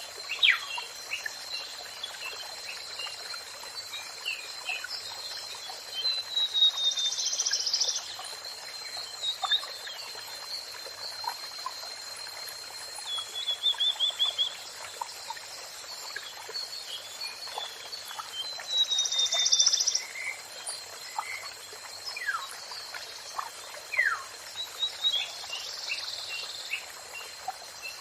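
Several songbirds calling and singing: sharp downward-sweeping whistles and quick trills, scattered throughout, over a steady even hiss and a thin, steady high-pitched tone.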